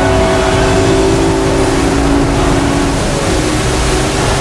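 Motorboat running through rough, stormy water: a loud, steady engine drone mixed with the rush of wind and water.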